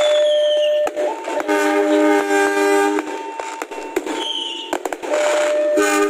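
Indonesian diesel locomotive and railcar air horns sounding in short blasts spliced one after another. Single-note blasts alternate with multi-note chime-horn chords, and each changes abruptly to the next.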